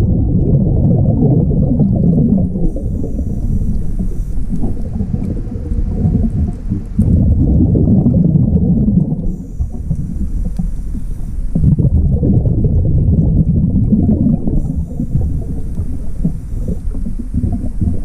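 Scuba diver breathing through a regulator underwater: a low bubbling rumble of exhaled bubbles alternating with a faint high hiss on each breath in, about three slow breaths.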